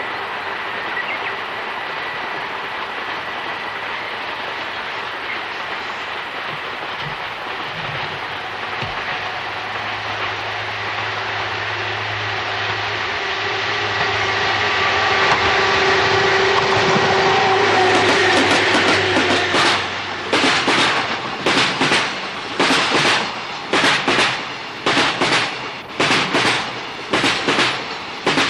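Electric train on the Tohoku Main Line drawing near with a rising rumble and a steady motor whine, then passing close by with a loud, even clickety-clack of wheels over rail joints in quick pairs.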